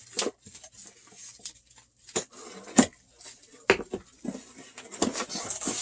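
Cardboard mystery box and its packaging being opened and handled: a handful of sharp knocks and taps with rustling in between.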